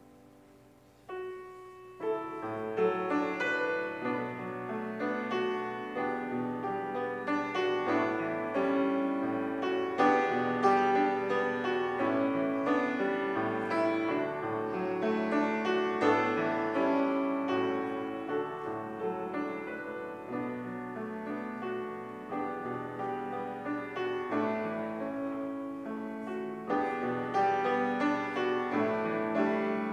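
Solo piano playing: a single note about a second in, then a steady flow of chords and melody from about two seconds on.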